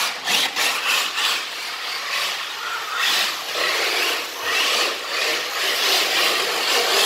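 Radio-controlled cars, a Traxxas TRX4 among them, drifting on the workshop floor: a rasping scrub of tyres sliding sideways, rising and falling in uneven surges.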